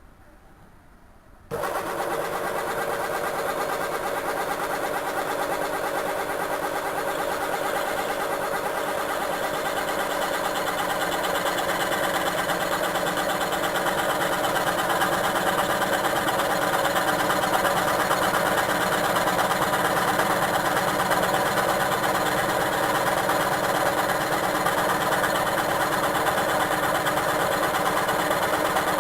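Homemade electric scroll saw switched on about a second and a half in, then running steadily with its reciprocating blade cutting a steel angle about 2 mm thick, getting slightly louder as it goes.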